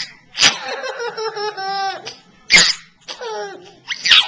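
A baby laughing: several sharp, breathy bursts, between them longer high-pitched stretches of laughter.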